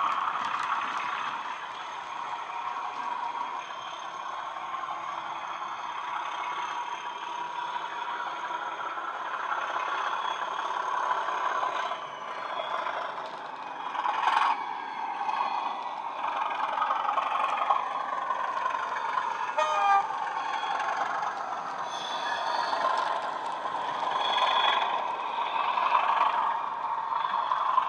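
A model Class 37 locomotive's DCC sound decoder playing a recorded Class 37 diesel engine through two small speakers, the engine running steadily with little deep bass. It gets louder near the end as the model passes close.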